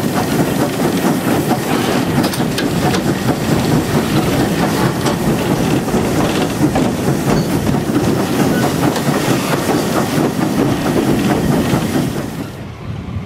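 A heritage train carriage running along the track, heard from an open carriage window: a steady rolling rumble of wheels on rail with rattling and clicks. The sound drops away near the end.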